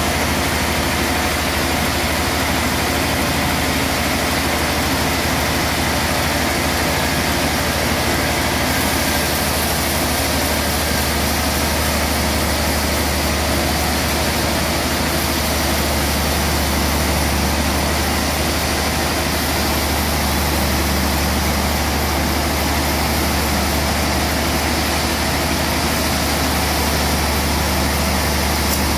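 Large sawmill band saw running steadily with a deep hum and a broad hiss while sawing a big trembesi (rain tree) log; the hiss turns brighter about nine seconds in.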